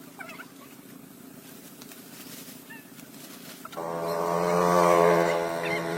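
A motor engine running at a steady pitch comes in suddenly about four seconds in, grows louder and then eases a little. Before it there is a faint low hum with a few short bird-like chirps.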